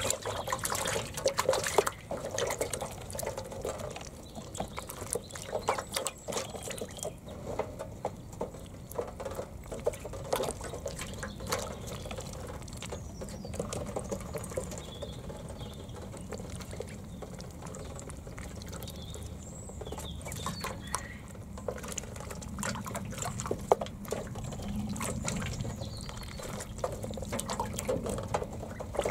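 Indian Runner ducklings splashing and paddling in a shallow tray of water: irregular splashes and drips, busiest in the first few seconds.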